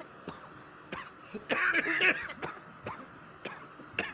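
A person coughing hard in one fit of several rapid coughs lasting about a second, starting about one and a half seconds in, with a few faint clicks before and after.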